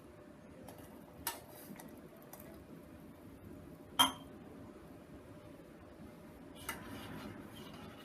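Kitchen pots and utensils knocking and clinking, three times: a light clink, then a loud ringing clink about four seconds in, then another light one, followed by a faint steady hiss near the end.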